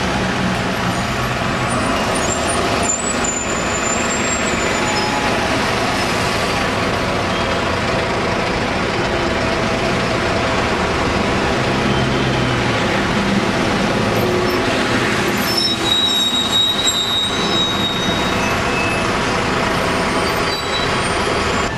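Diesel engines of London double-decker buses, Routemasters among them, running and pulling away in dense street traffic, with a steady engine hum. A thin high squeal comes about three seconds in and a louder one around sixteen seconds in, likely brakes.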